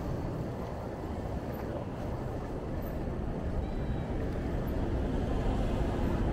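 Steady city street noise heard from a moving bicycle: a dense low rumble of traffic mixed with wind on the camera's built-in microphone.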